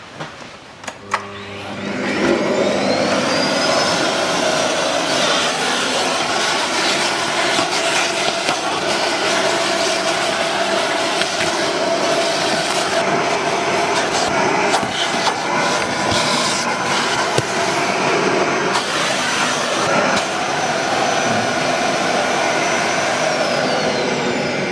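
Vacuum cleaner switched on about two seconds in: its motor winds up with a rising whine, then runs steadily. The nozzle sucks dirt and grit off the car's floor carpet.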